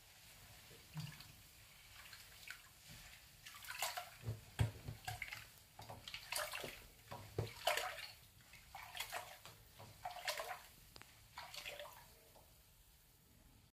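Bathwater sloshing and splashing in a bathtub in short, irregular bursts a second or so apart, quiet at first and busiest through the middle.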